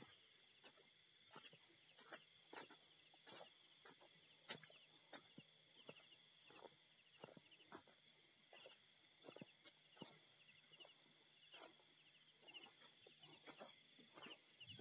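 Faint night chorus of frogs and insects: a steady high insect trilling with short pulsed chirps repeated about once a second, and irregular sharp ticks throughout.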